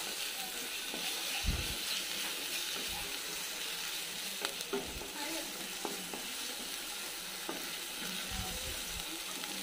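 Sliced onions, green chillies and ginger-garlic paste sizzling steadily in hot oil in a nonstick kadai: the paste is being lightly fried until its raw smell goes. The mix is stirred with a wooden spatula, which now and then scrapes or knocks against the pan.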